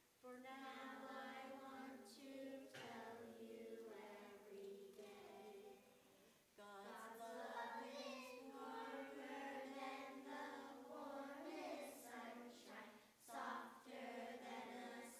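A children's choir singing a song together, with a short pause between phrases about six and a half seconds in.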